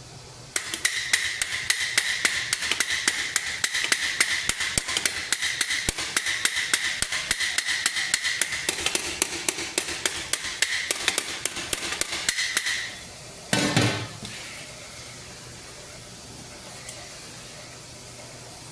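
Hammer striking the steel plates of a great helm in a fast, even run of about five or six blows a second, the metal ringing under each blow; the hammering stops about two-thirds of the way through. A brief rush of noise follows soon after.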